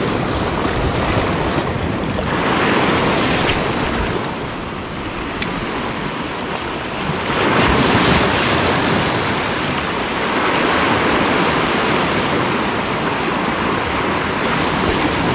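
Sea waves breaking and washing over a rocky shoreline, a continuous surf that swells twice, about two seconds in and again around eight seconds.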